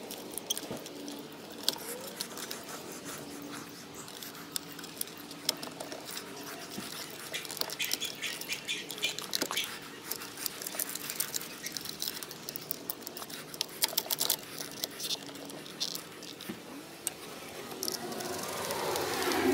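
Scattered light clicks and taps, as of small parts and hand tools being handled, irregular and coming thicker in the middle of the stretch.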